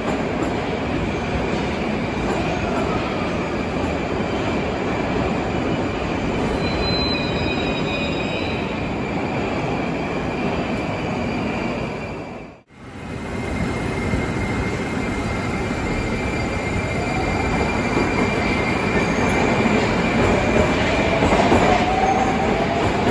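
Moscow Metro 81-760/761 'Oka' train in a station. For the first half it rolls in with a falling drive whine and a brief high squeal, then runs steadily. After a short break it pulls away, and its traction drive whine rises in pitch as it speeds up, growing louder near the end.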